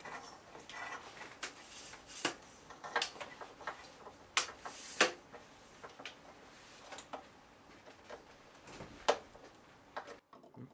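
Irregular small clicks and taps of metal and plastic parts as a lamp socket and its cable are fitted onto a metal lamp frame by hand. The sharpest clicks come about halfway and about nine seconds in, and the clicking drops away near the end.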